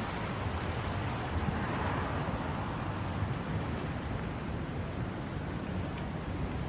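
Steady outdoor background noise: wind on the microphone with a low rumble of distant road traffic.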